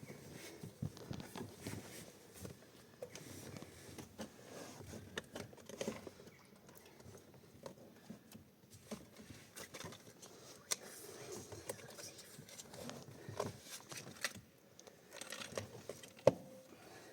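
Hands working plastic car interior trim: scattered light clicks, taps and rustling, with one sharp click shortly before the end.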